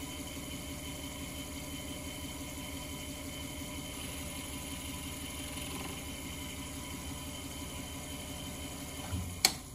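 Watchmaker's lathe running with a steady motor hum. A sharp click near the end, after which the running sound dies away.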